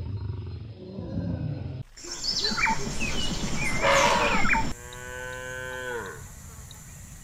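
Separate animal recordings cut one after another: a low rumbling, then a louder noisy stretch with high bird chirps, then a Highland cow mooing. The moo comes about five seconds in as one long call that drops in pitch at its end.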